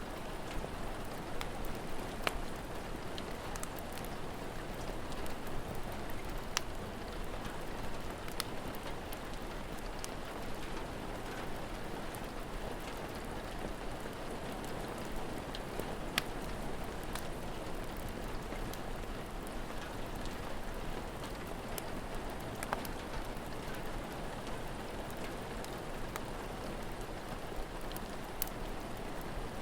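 Steady rain falling, with scattered sharp pops from a crackling fire every few seconds.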